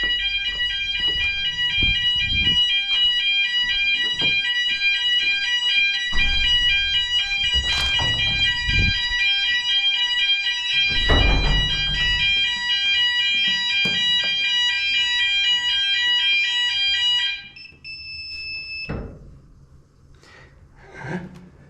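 Building fire alarm sounding during a weekly test after a manual call point is set off: a loud, steady, many-toned ringing that cuts off suddenly about 17 seconds in. A brief beep follows it. Dull thumps and knocks are heard under the alarm.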